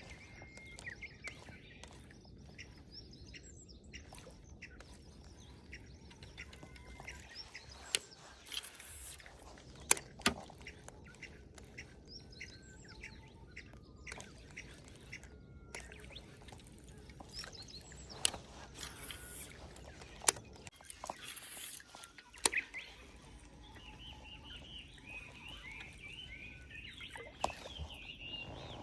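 Small birds chirping and calling, growing busier near the end, with a handful of sharp single clicks or knocks and a low steady background noise.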